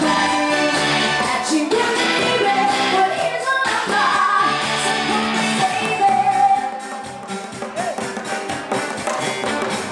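Live band playing a song with singing over it and a steady beat.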